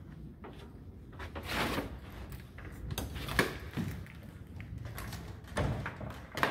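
Screen door being handled, with a few scattered knocks and clicks from its frame and latch, and a brief rushing noise about a second and a half in.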